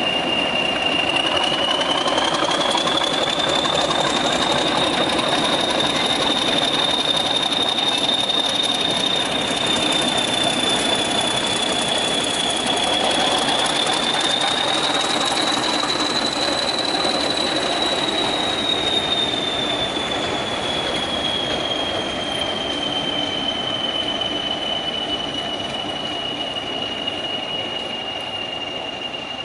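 Class 40 diesel locomotive 40106 passing with a train, its turbochargers giving a loud, steady whistle. The whistle climbs in pitch over the first couple of seconds, swells again about halfway through, then slowly sinks toward the end. Beneath it are the engine's running and the rumble of wheels on the rails.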